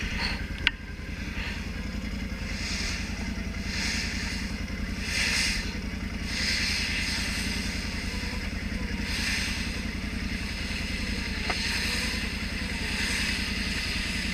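A Can-Am Outlander 650 ATV's V-twin engine running at a steady speed, with a sharp click about a second in and several swells of hiss.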